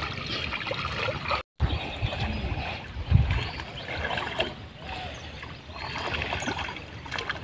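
Pond water sloshing and splashing as a person wades chest-deep among water lilies. The sound is uneven, with a low thump about three seconds in, and cuts out for a moment about one and a half seconds in.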